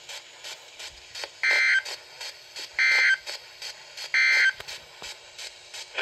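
Three short bursts of digital data tone from a Midland NOAA weather radio's speaker, about a second and a half apart. This is the Emergency Alert System end-of-message code that closes the warning broadcast.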